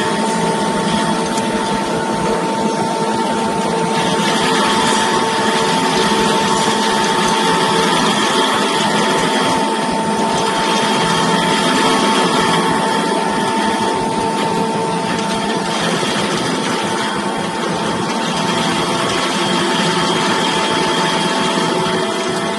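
Electric-motor-driven almond grinding mill running steadily: a constant whine over a dense mechanical noise.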